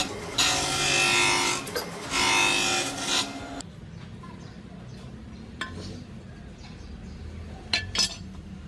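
Forged thread-tap steel being ground, in three loud passes about a second each. The grinding stops after about three and a half seconds, leaving a low hum broken by a few light clicks.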